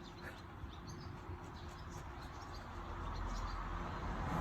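Outdoor ambience: faint, scattered bird chirps, with a low rumble that grows louder over the last second or so.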